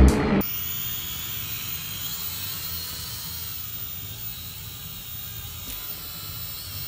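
Small quadcopter drone in flight, its propellers whining steadily with a slightly wavering pitch. A guitar music track cuts off about half a second in.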